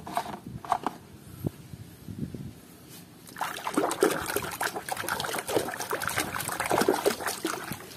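A few light knocks of plastic toys being handled, then from about three and a half seconds in, continuous splashing and sloshing as a hand swishes muddy plastic toys around in a tub of water to wash them.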